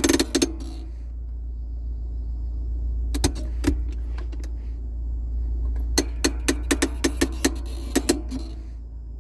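Fiat Uno handbrake lever ratchet clicking as the lever is worked: a quick run of clicks at the start, a couple of clicks about three seconds in, and a slower, evenly spaced series of clicks from about six to eight seconds, over a steady low hum.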